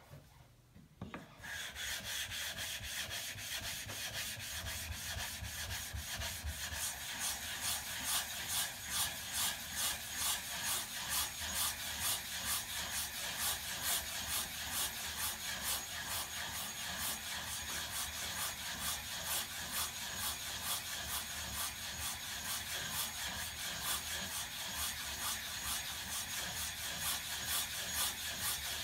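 ESEE-3 knife blade being polished on a wet Suehiro Debado water stone: a steady wet scrape of steel on stone, stroked back and forth about one and a half times a second, starting about a second and a half in.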